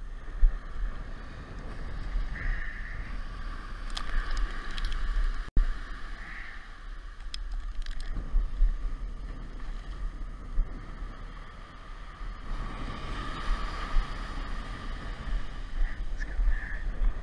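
Surf washing up on a sandy beach, with wind buffeting the microphone in a low rumble and the wash swelling louder about three quarters of the way through. A few light clicks.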